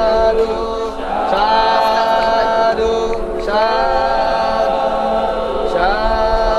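Buddhist devotional chanting sung without instruments in long held notes; each new phrase slides up into its note, about every two seconds.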